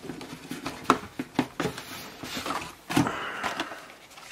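Plastic blister-carded Hot Wheels cars being handled and pulled out of a cardboard shipping case, with rustling and several irregular sharp clicks and knocks.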